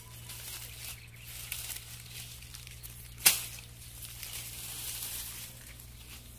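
Dry lemongrass stalks and leaf litter rustling as a clump is pulled and cut by hand with a knife, with one sharp snap a little past three seconds in.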